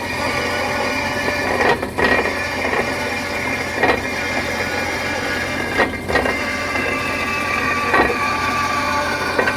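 Steady mechanical whine with a sharp knock about every two seconds.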